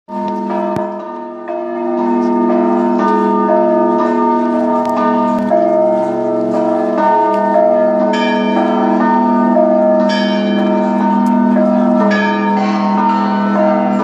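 Russian Orthodox monastery bell ringing: several bells of different sizes sounding together, a deep bell's hum held underneath while smaller bells are struck again and again on top, their ringing overlapping.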